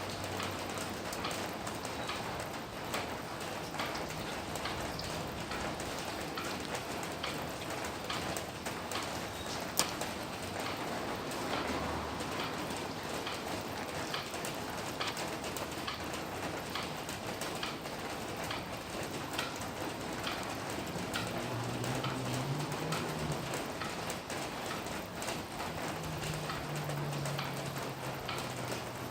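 Steady rain falling, with many separate drops ticking sharply through it and one louder tap about ten seconds in. A faint low hum comes and goes in the second half.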